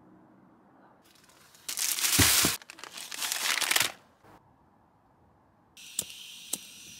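Plastic instant-noodle packets crinkling loudly as they are handled, for about two seconds. Then a canister gas stove is turned on with a steady hiss of gas, and two sharp clicks of its igniter follow about half a second apart.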